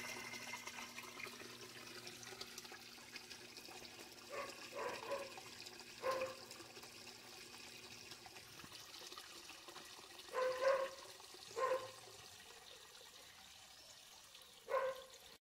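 Water from an aquarium filter's return pipe pouring and splashing into the tank, with the filter pump humming until it is switched off about eight seconds in. A dog barks five times, in ones and twos.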